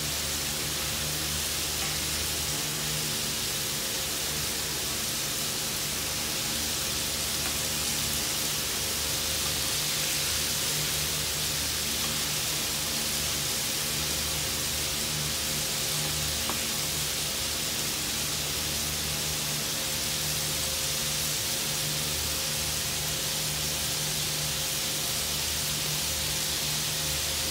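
Egg-coated chicken pieces deep-frying in a wide pan of hot oil: a steady sizzle of bubbling oil, with a steady low hum underneath.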